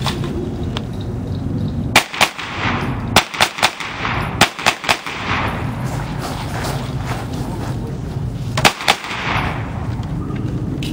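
9mm pistol-caliber carbine shots fired in quick strings: a pair about two seconds in, a fast run of about eight shots over the next few seconds, then another pair near the end. Each shot has a short ringing tail.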